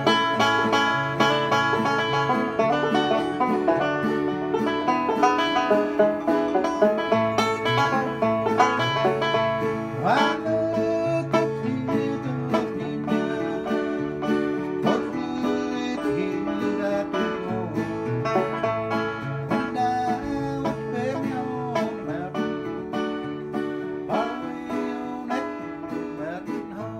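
Bluegrass music played on banjo and guitar, the banjo picking quick runs of notes.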